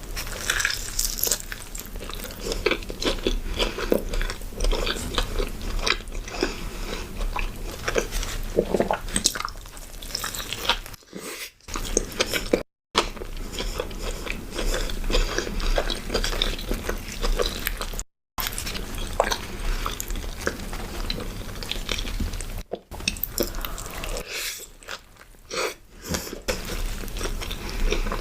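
Close-up chewing and biting into a burger: steady crunching and wet, clicky mouth sounds, broken twice by a moment of silence.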